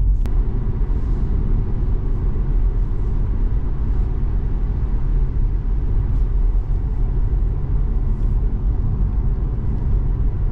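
Steady low rumble of road and tyre noise inside a Tesla Model 3 on the move, with no engine note. A single sharp click sounds just after the start.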